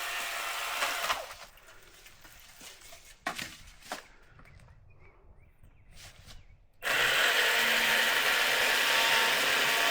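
Milwaukee M18 cordless pole saw cutting up into a limb that is under load. It runs for about a second, drops to a low level with a couple of knocks, then cuts steadily and loudly again from about seven seconds in.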